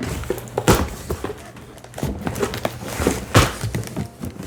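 Cardboard advent calendar carriage boxes being handled and set in place, with two sharp thunks, one near the start and a louder one past the middle, among smaller handling knocks.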